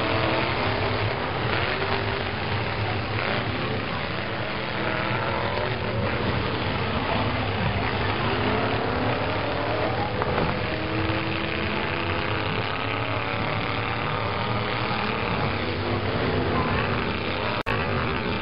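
Several pickup-truck engines in a demolition derby revving and running at once, rising and falling in pitch, with a few faint knocks as the trucks hit. The sound cuts out for a split second near the end.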